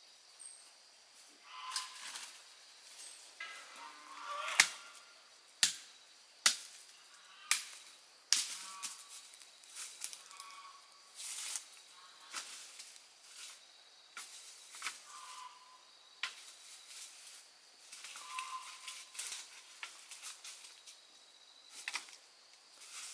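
A series of sharp snaps or knocks, loudest for a few seconds near the start at about one a second, among lighter rustling and crackling.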